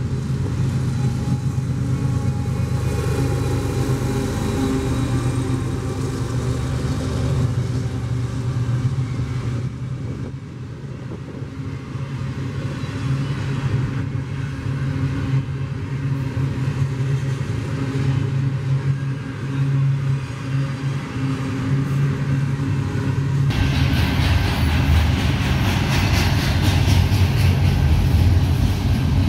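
A large engine running steadily with a low hum. A wider rushing noise comes in sharply near the end.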